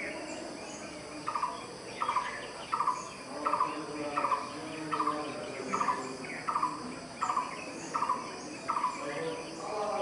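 Blue-throated barbet calling: about a dozen short, rolling notes near 1 kHz, repeated evenly about every three-quarters of a second from just over a second in. Insects and other birds are faint in the background.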